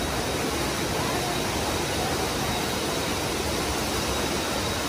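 Steady rush of water flowing and cascading over rocks at a waterfall, an even hiss with no change.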